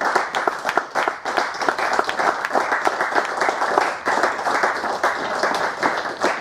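Applause: many people clapping together, a dense, continuous patter of claps.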